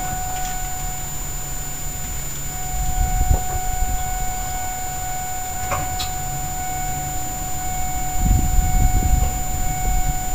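2000 Ford F-350's 7.3 L Powerstroke turbodiesel V8 idling cold, a steady low rumble with a steady high whine over it and a louder patch about eight seconds in. It idles evenly without a lope.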